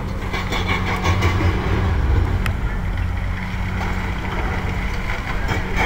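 Diesel engine of a high-reach demolition excavator running with a steady low drone while its arm breaks into the concrete building. Irregular crackling and clattering of breaking concrete and falling debris runs over the drone, with one sharp snap about two and a half seconds in.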